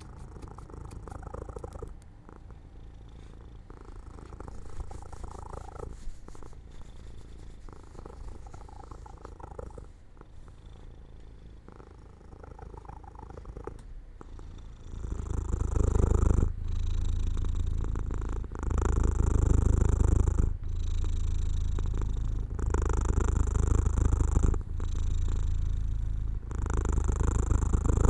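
Domestic cat purring in a steady rumble that pauses briefly with each breath, about every two seconds. It grows much louder about halfway through.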